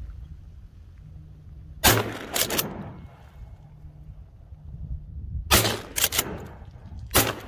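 Shotgun fired repeatedly at ducks coming in over decoys: sharp close shots in three quick groups, about two seconds in, around five and a half seconds, and near the end, each with a short echo trailing off across the water.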